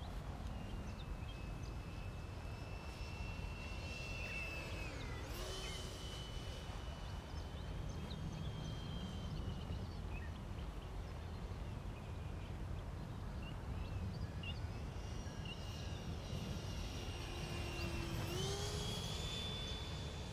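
Electric ducted fan of a 75 mm HSD Viper Jet RC model whining in flight. It swells with a rush of air on two passes, about five seconds in and near the end, with the pitch bending as it goes by. A low wind rumble on the microphone runs underneath.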